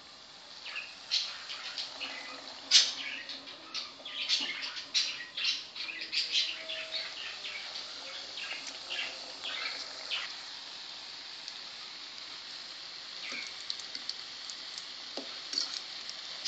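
Hot oil sizzling around pieces of dough frying in a pan. Sharp crackles and pops come thick for about the first ten seconds, then settle into a steadier sizzle.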